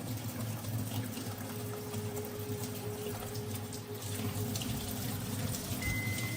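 Water running steadily over a low, continuous hum.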